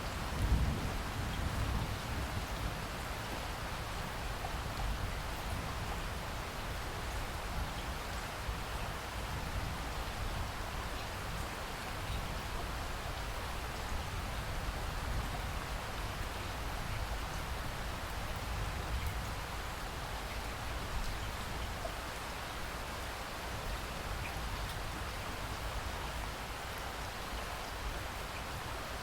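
Steady rain falling, an even patter with no let-up. About half a second in, a brief low rumble of thunder swells and fades.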